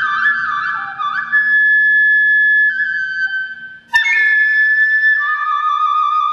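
Shinobue, the Japanese bamboo transverse flute, playing a melody. A quick run of alternating notes turns into long held notes that step downward. After a brief break about four seconds in, a sharp attack opens a high held note, which drops to a lower long note about a second later.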